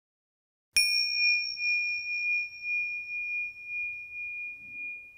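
A single bell-like chime struck once, about three-quarters of a second in, ringing a clear high tone that slowly fades.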